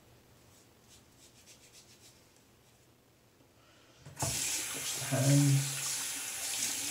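Bathroom sink tap turned on about four seconds in, water then running steadily into the basin. A brief low hum sounds about a second after the water starts.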